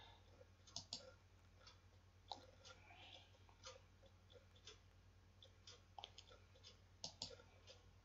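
Near silence broken by a few faint computer mouse clicks, some in quick pairs, as the pages of an online book are turned.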